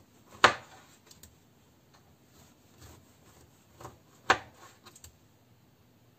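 Kitchen knife slicing through an orange and striking the wooden cutting board: two sharp knocks about four seconds apart, the first about half a second in, with fainter taps of the blade between.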